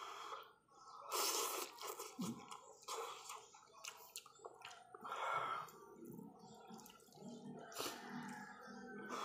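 A person slurping instant ramyun noodles and chewing. There are three loud slurps, about a second in, around five seconds and near the end, with wet chewing between them.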